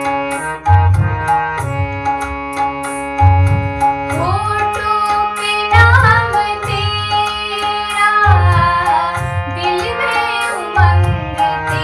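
Devotional song: sustained keyboard chords over a deep, slow, regular drum beat, with a voice singing a gliding melody from about four seconds in.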